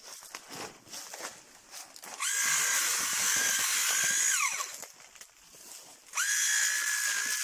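Handheld electric coffee harvester running in two bursts, a steady motor whine that starts about two seconds in, winds down with a falling pitch near halfway, and starts again abruptly about six seconds in. Before the first burst there are light clicks and rustling.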